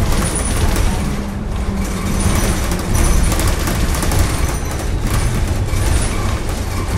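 Steady heavy rumble of a 2018 New Flyer XDE40 diesel-electric hybrid city bus under way, with its Cummins B6.7 diesel and BAE HybriDrive electric drive, heard from on board.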